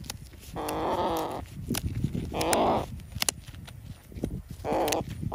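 A hen being held for wing clipping squawks three times in protest, each call under a second long, with a few sharp clicks in between.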